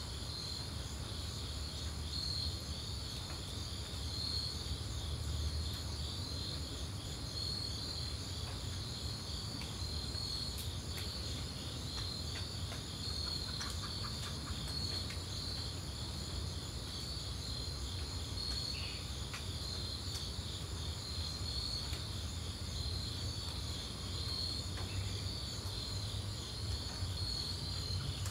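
A steady insect chorus, a fast pulsing trill, over a low rumble, with a few faint ticks near the middle.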